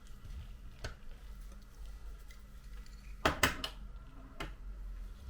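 Light metallic clicks and taps from small repair tools and parts as the home button bracket plate is lifted off an iPhone 7: a single click about a second in, a quick cluster of clicks a little past three seconds, and one more near the end.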